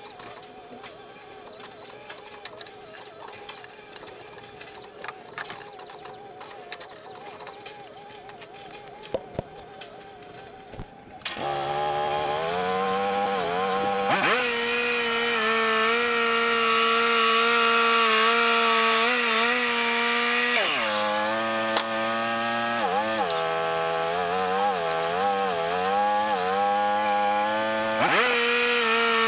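Wood-Mizer LT35 portable bandsaw mill, quiet at first, then its engine comes up to speed suddenly about a third of the way in and runs loud and steady as the band blade saws through a pine log. Near the end the engine pitch sags and wavers for several seconds as it labours in the cut, then picks back up.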